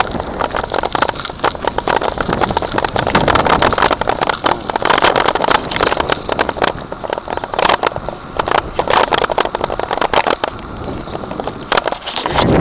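Crackling, rustling handling noise and wind buffeting on the microphone of a camera carried on the move.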